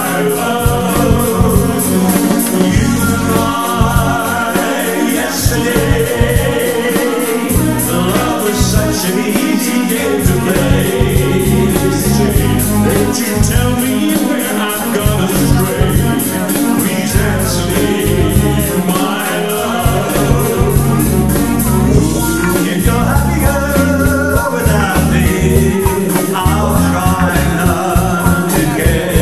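Two male singers performing a song live into microphones over amplified backing music with a steady beat.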